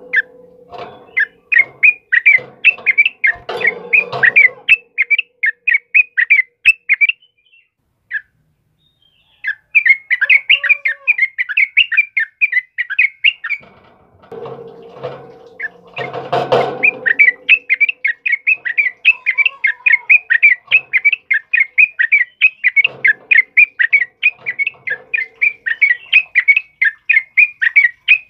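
Yellow-vented bulbul (trucukan) singing long rapid rolling runs of sharp repeated notes, about five a second, with a brief pause partway through. Lower, rougher calls with clicks join in near the start and around the middle.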